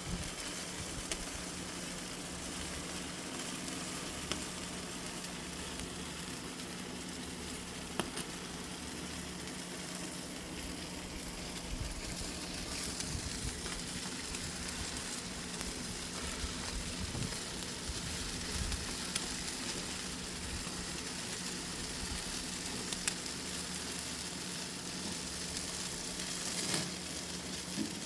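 Barbecue sizzling on a grill: a steady hiss of cooking fat, with a few sharp pops and crackles now and then.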